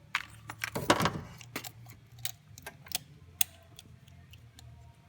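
Irregular metallic clicks and clinks from hand tools and the compression-tester fittings being handled in the engine bay, with a denser cluster about a second in and a few single sharp clicks after.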